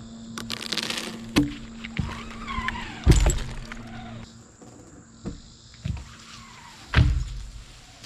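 A cut section of tree crashes down through branches with a rustle, then lands and bounces in several heavy thuds, the loudest about three seconds in.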